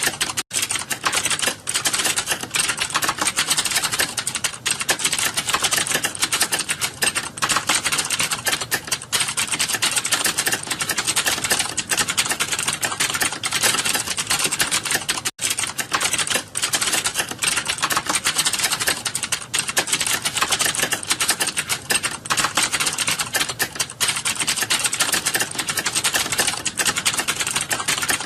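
Fast, continuous typing on a computer keyboard: a dense, rapid run of key clicks, broken by two brief gaps, one near the start and one about halfway through.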